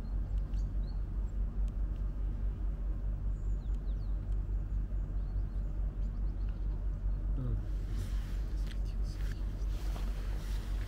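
Wind buffeting the microphone: a low rumble that rises and falls unevenly. A few faint high bird chirps sound over it, and there are light clicks near the end.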